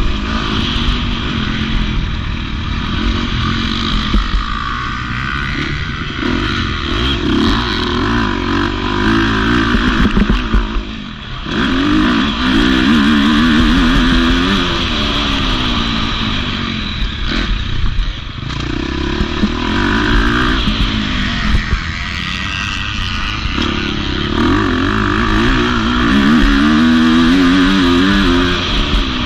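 KTM 250 SX-F four-stroke single-cylinder motocross engine, heard from on board as the bike is ridden hard. The engine repeatedly revs up and drops as the rider shifts gears and gets on and off the throttle, with a brief sharp drop about eleven seconds in.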